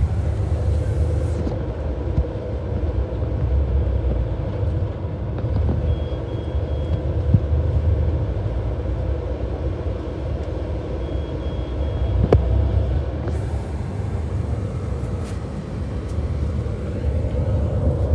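Steady low engine and road rumble inside the cabin of a King Long XMQ6871CY bus on the move. A high electronic beep sounds three times in quick succession about 6 seconds in, and again about 11 seconds in.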